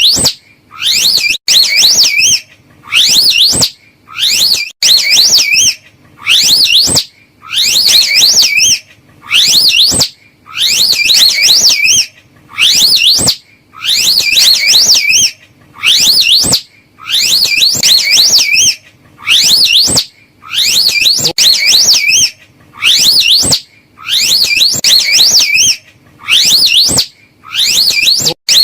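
Slow loris calling: a loud, high, warbling whistle about a second long, repeated steadily about every second and a half.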